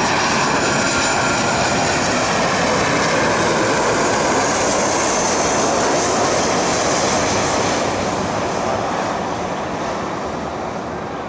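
Jet airliner on landing approach passing close: a loud, steady rush of engine noise with a faint high whine, dying away over the last few seconds.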